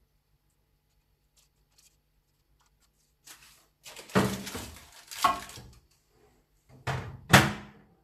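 A plate of sweet potato chips on paper slid back into a Kunft microwave, with handling and sliding noise about four seconds in, then the microwave door shut: a small knock and then a loud thunk near the end.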